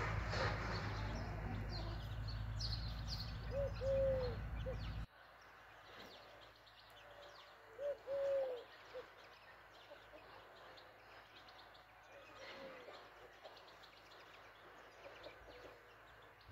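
Hen and chicks: faint high peeps from the chicks, with a short, low, cooing call every few seconds. A low rumble cuts off about five seconds in.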